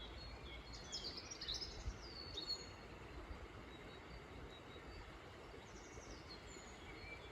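Songbirds singing in woodland, with short high chirps and trills, busiest from about one to two and a half seconds in and again around six seconds, over a faint steady outdoor background noise.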